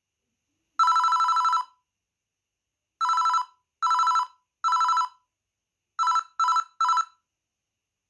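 Panasonic EB-X300 mobile phone playing ringtones from its loudspeaker: a loud two-tone electronic trill like a telephone bell. It sounds in bursts: one long ring about a second in, then three rings, then three shorter ones near the end.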